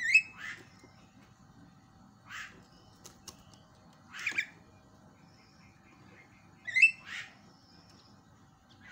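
Javan myna (jalak kebo) giving short, harsh, raspy calls about every two seconds, the loudest just after the start and again about seven seconds in.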